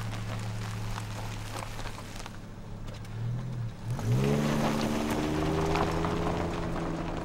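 Volvo 850 station wagon's engine idling as the car rolls slowly over gravel, with tyres crunching. About four seconds in, the engine revs up and the car pulls away, its note rising and then holding steady.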